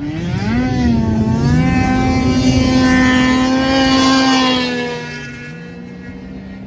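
Snowmobile engine revving up and holding high, steady revs as the sled speeds past close by. It is loudest about three to four seconds in, then fades. A lower, steadier pickup-truck engine takes over near the end.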